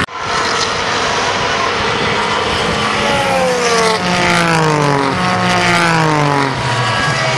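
Race car engines running past on the track. From about three seconds in, one engine note falls in pitch in a series of steps as a car slows.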